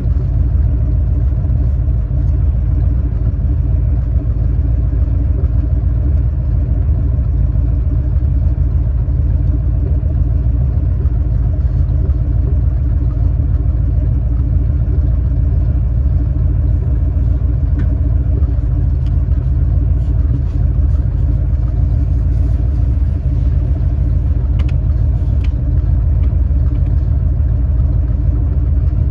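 The engine of a 1968 Dodge D300 tow truck running steadily with a low rumble.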